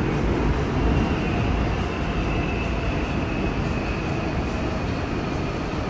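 Running noise inside a Busan Metro Line 1000-series subway car with Toshiba permanent-magnet-motor drive, travelling through a tunnel: a steady rumble of wheels on rail. A faint high whine comes in about a second in and fades a little after the middle.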